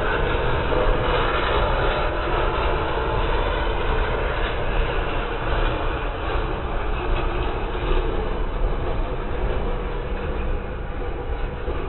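Freight train passing, with the steady running noise of its cars on the rails, easing slightly near the end.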